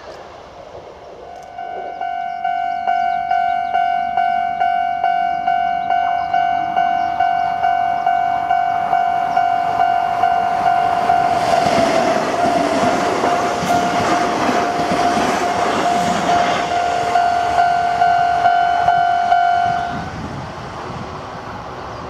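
Japanese level-crossing alarm bell ringing in a steady, rapid series of strikes, about two or three a second, starting a second or two in and stopping near the end. Midway, a Kintetsu commuter train rushes through the crossing, its wheels and motors rumbling over the bell for about five seconds.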